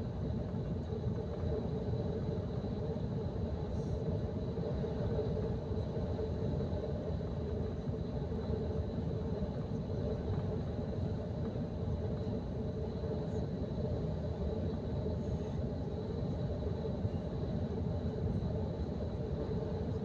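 Steady low rumble of tyres and engine heard from inside a vehicle cruising along a motorway, with a faint steady high whine above it.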